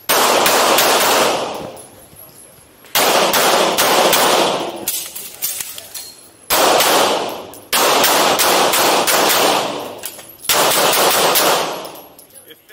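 Pistol shots fired in fast strings, about six strings in all, each followed by heavy echo from the indoor range.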